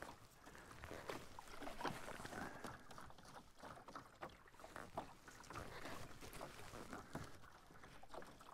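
Water lapping and trickling against a canoe's hull as it is paddled, with small irregular knocks and splashes; faint.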